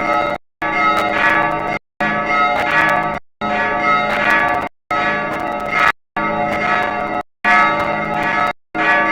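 Church bells ringing together, many pitches overlapping, with a steady run of strokes. The sound comes in regular stretches of about a second and a quarter, each dropping briefly to silence before the next, about seven times.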